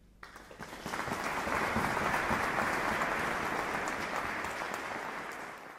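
Audience applauding, breaking out about a quarter second in, swelling within a second, then tapering off near the end.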